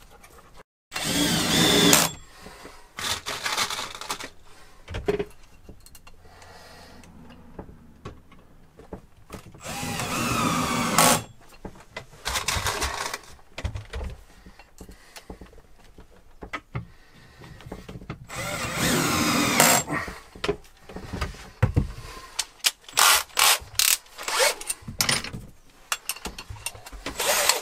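Cordless drill-driver driving screws into pine cabinet parts: several runs of a motor whine that climbs and drops in pitch with the trigger, then a quick series of short pulses near the end.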